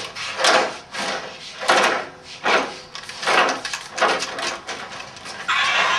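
Toy car pushed back and forth so its wheels scrape and rub in a rhythm of about one stroke a second, the way a friction-motor car is revved up. Near the end a steady whirring hiss starts.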